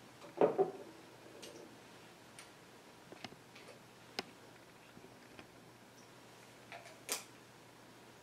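Small objects handled and set down on the altar table during the preparation of the gifts: a knock about half a second in, then a few scattered light clicks, with a sharper click near the end.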